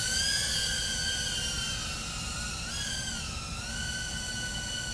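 A Tank95 2-inch FPV drone's brushless motors and propellers whining in flight, a high whine with overtones that wavers in pitch as the throttle changes, dipping and rising again about three seconds in.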